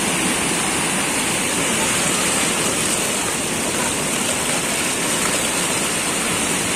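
Steady rushing of muddy floodwater flowing across a street, with rain falling.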